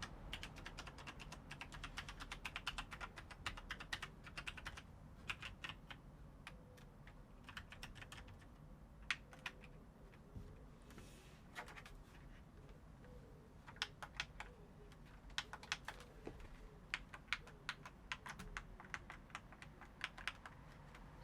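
Typing on a Logitech G613 mechanical keyboard with Romer-G tactile switches: quick runs of key clicks in the first few seconds, then scattered keystrokes and short flurries with pauses between them.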